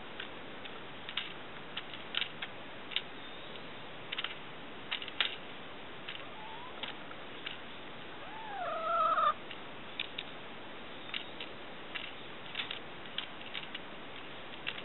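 Hens' beaks pecking at the metal drinking nipples of a PVC poultry waterer, a scatter of short sharp taps over a steady hiss. About eight seconds in, one hen gives a brief wavering call.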